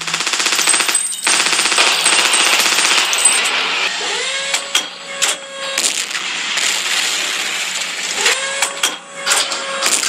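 War-film battle sound effects: a fast, continuous burst of machine-gun fire for about three and a half seconds, then more scattered gunshots over a steady din.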